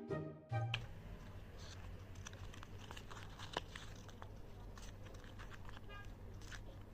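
Music stops just under a second in, leaving faint handling noise: light crinkling and scattered soft clicks over a steady low hum.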